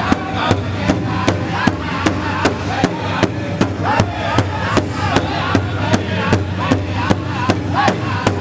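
Powwow drum group: a large hide drum struck in unison by several drumsticks in a steady, even beat, with the men singing high over it.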